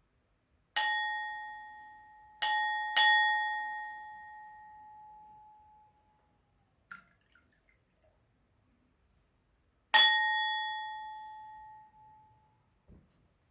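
A crystal glass struck four times, about a second in, at two and a half and three seconds, and again near ten seconds. Each strike rings out on the same clear pitch with higher overtones and fades away over two or three seconds.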